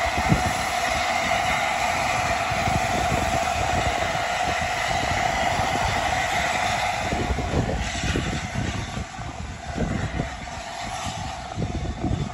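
LNER A4 Pacific steam locomotive Sir Nigel Gresley moving off slowly: a steady hiss of steam over a low rumble, which fades about seven seconds in, then a few soft exhaust beats near the end.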